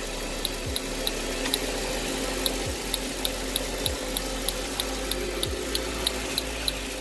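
Ignition spark snapping at a steady rhythm, about three sharp ticks a second, over a steady hiss. This is the even, constant spark of a good ignition coil on the Mercedes V8.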